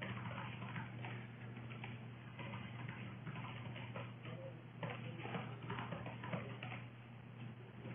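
Computer keyboard typing: quick, irregular key clicks in runs as a line of code is entered, over a steady low hum.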